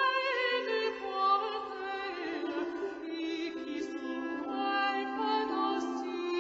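Background music: a slow melody with vibrato over a held low note.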